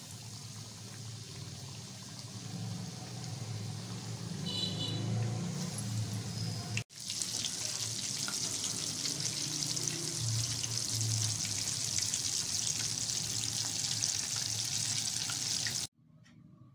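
Batter-coated chicken wings sizzling and bubbling in hot deep-frying oil. The sizzle grows louder a few seconds in and drops out for an instant partway through. It then runs loud and steady and cuts off suddenly near the end.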